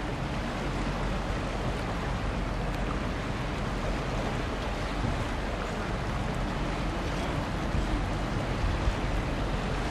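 Steady wind and river-water noise, with wind rumbling on the microphone and a few stronger gusts near the end.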